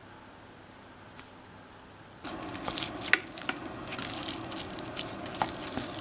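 Faint room tone, then about two seconds in, wooden chopsticks stirring a mashed potato and vegetable mixture in a metal pot: many irregular clicks and scrapes against the pot over a steady noisy hiss.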